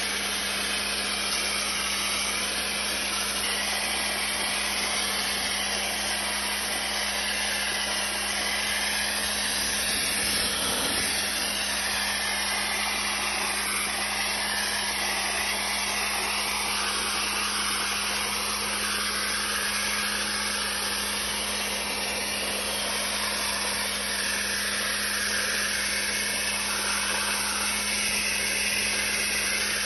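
Dry-ice (cold) blasting gun spraying a steady blast of compressed air and ice against a spray-painted panel, stripping the graffiti, over a constant low hum.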